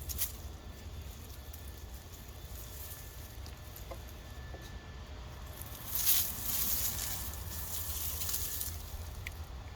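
Hands digging and rummaging through loose potting soil in a container bin to uncover potatoes: soft rustling and crackling with small clicks, growing louder and scratchier about six seconds in for a few seconds.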